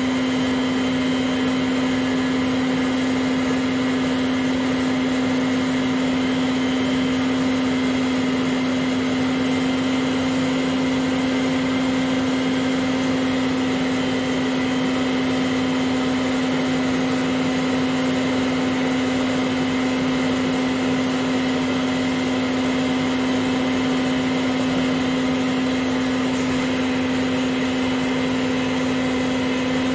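An old vacuum cleaner running steadily as an air blower, pushing air out through its outlet hose into a large inflatable pool: a continuous motor hum with one strong low tone and an even rush of air.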